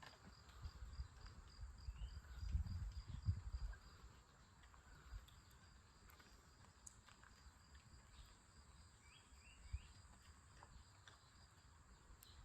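Faint insects chirping at night in an even, repeating high pulse over a steady high drone, with a low rumble from about two to four seconds in.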